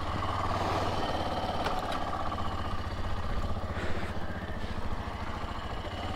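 Benelli BN 125's single-cylinder engine idling steadily, a low, even pulse.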